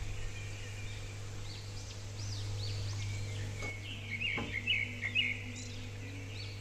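Small birds chirping repeatedly in quick, short calls, over a steady low hum.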